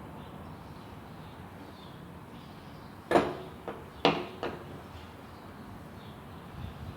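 Two sharp knocks about a second apart, each followed by a lighter click, over a faint steady background.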